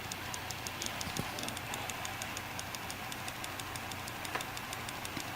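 Seagate FireCuda 2TB 2.5-inch SSHD (ST2000LX001) ticking in a fast, even run of about six light clicks a second over a low steady hum. The owner takes these clicks for a sign of trouble with the drive.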